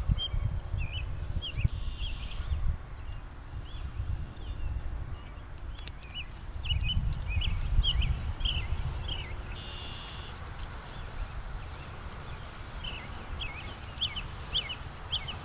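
Small birds chirping in many short, high notes, with a low rumble underneath that swells near the start and again about seven to nine seconds in.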